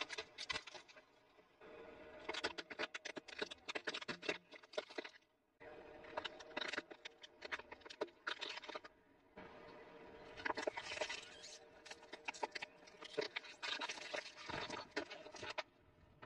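Plastic objects cracking and crunching under a slowly rolling car tyre, in several separate runs of dense snapping and crackling with short breaks between them.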